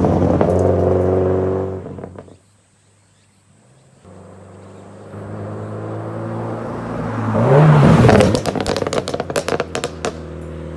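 Subaru WRX STI (VAB) turbocharged flat-four engine revving, with the exhaust popping and crackling rapidly on lift-off after a hard rev near the end. This is the overrun 'bubbling' tune programmed into its ECU.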